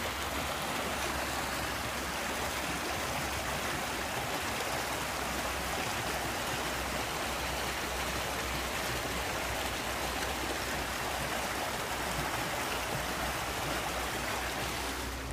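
Small rocky stream cascading over boulders: a steady rush of water.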